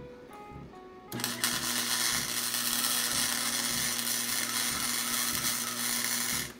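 MIG welder arc on steel as a motor-mount plate is welded to a car frame: a steady crackling hiss with a low hum under it, starting about a second in and cutting off just before the end.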